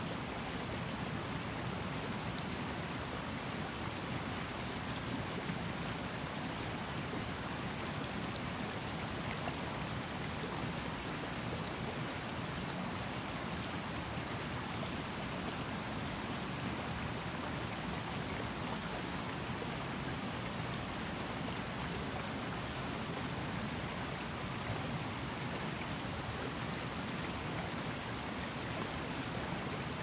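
Highland river water flowing steadily over rocks, a continuous even rush.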